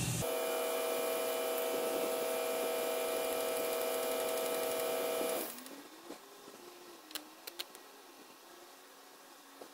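Steady machine hum with several constant tones, which cuts off about five and a half seconds in. A faint background with a few light clicks follows.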